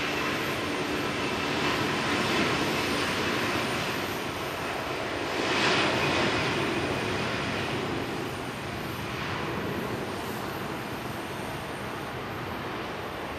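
Airbus A340-300's four CFM56-5C turbofan engines at takeoff thrust on the takeoff roll: a steady jet roar that swells to its loudest about six seconds in as the airliner passes, then slowly fades as it rolls away.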